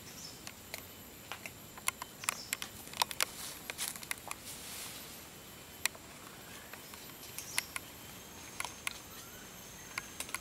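Irregular sharp ticks and crackles, like twigs and dry leaves snapping and shifting, clustered most thickly a couple of seconds in, with a brief soft rustle around the middle. A faint steady high insect drone sits under them.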